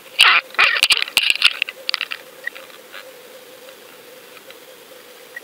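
Underwater camera rig knocking and clicking as it is jostled on the line, with a burst of sharp knocks in the first second and a half, then only faint scattered clicks over a low steady hum.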